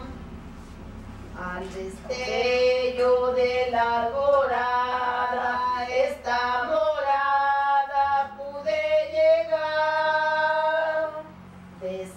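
Women's voices singing a slow song, holding long notes, with no instruments heard. The singing is quieter for about the first second and a half and drops away briefly near the end.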